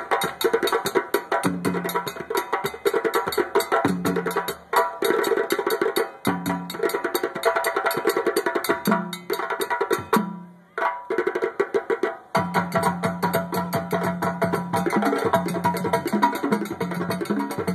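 A group of drums played together in a fast, dense rhythm, briefly stopping about ten seconds in and then starting up again.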